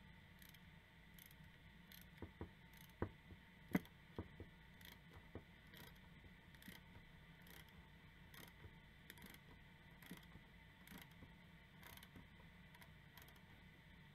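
Faint metal clicks of a small wrench working the pivot nut of antique Henry T. Seymour shears as the nut is loosened to take them apart: a cluster of sharper clicks about two to five seconds in, then a string of light, evenly spaced ticks.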